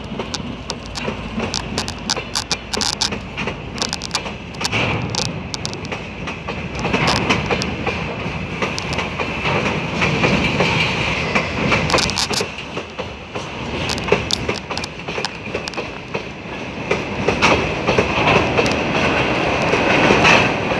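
Freight train of loaded open wagons rolling past at speed. The wheels give a steady rumble and run of clickety-clack clicks over the rail joints, with a continuous high ringing above.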